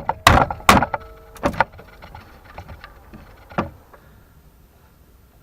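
Hammer striking the screw tips that poke through the back of a wooden bed board, bending them over. Three sharp knocks in the first second and a half, with a light ringing after them, then a few light taps and one more knock about three and a half seconds in.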